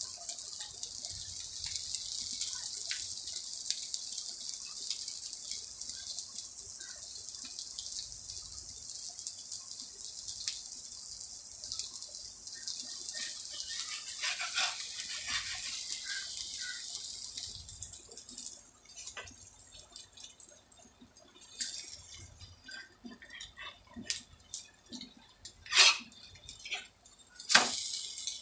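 An egg-coated roti sizzling on a hot tawa over a gas flame, a steady high hiss that fades away a little past halfway. A few sharp clinks of a metal spatula follow near the end.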